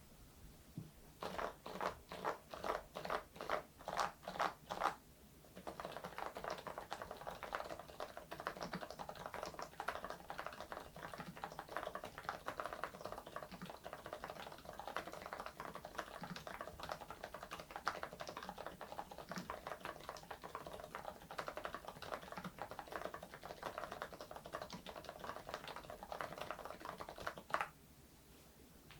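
Mechanical keyboard fitted with PBT keycaps being typed on: about a dozen separate keystrokes first, then fast continuous typing for over twenty seconds, ending with one louder stroke.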